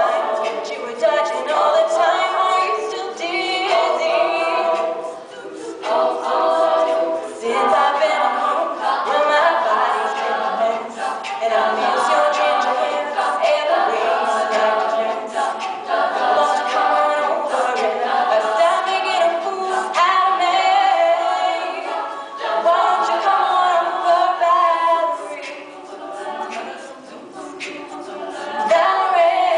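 Women's a cappella group singing live, several voices in harmony with no instruments.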